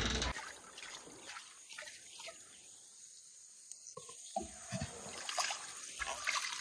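A music track cuts off just after the start, leaving a quiet riverside background. In the second half come a few small splashes and trickles as hands dip into shallow river water.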